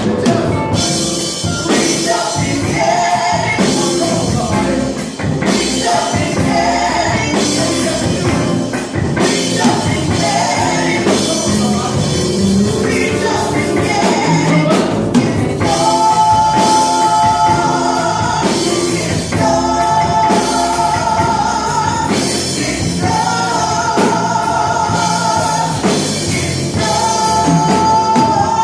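Gospel worship song: voices singing over a band with drums. About halfway through, the singing turns to long held notes in repeating phrases.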